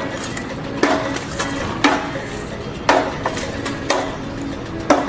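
Background music with a steady beat, a sharp hit about once a second.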